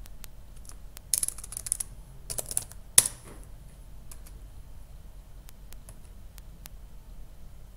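Typing on a laptop computer keyboard: two quick runs of keystrokes, one loud keystroke about three seconds in, then a few scattered single clicks.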